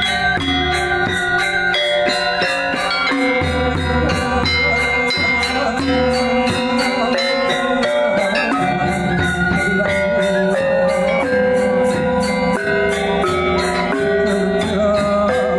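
Balinese gamelan gong ensemble playing: bronze metallophones and gongs ringing in layered, interlocking tones over a steady fast pulse of bright strikes, about four to five a second, with low booming swells that come and go.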